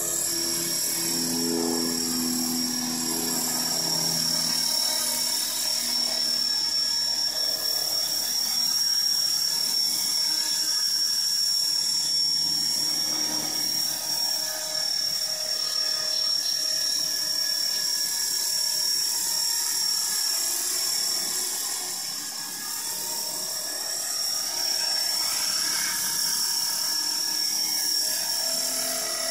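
Flybarless radio-controlled model helicopter hovering, giving a steady high whine.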